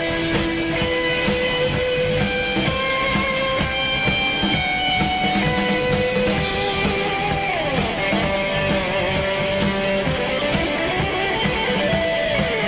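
Live rock band playing an instrumental break with no vocals: an electric guitar melody of held notes and slides over bass and drums.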